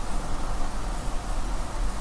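Steady background hiss with a low hum underneath, no distinct events: a pause between words.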